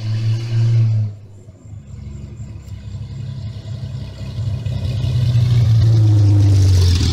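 BMW E30 325i's straight-six engine running as the car drives toward the microphone, the hum building steadily and loudest near the end.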